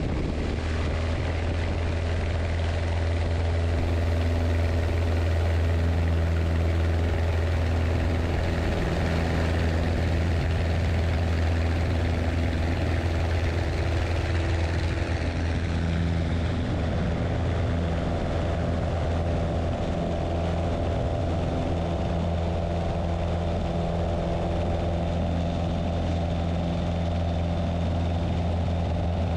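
A Cessna 150's four-cylinder Continental O-200 engine and propeller running steadily at full takeoff power through the takeoff roll and liftoff, heard from outside the cabin under the wing.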